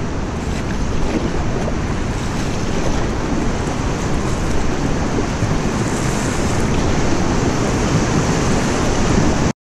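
Rushing river water of a whitewater rapid, with wind rumbling on the microphone, heard from a canoe drifting into it: a steady hiss that builds slightly and cuts off suddenly near the end.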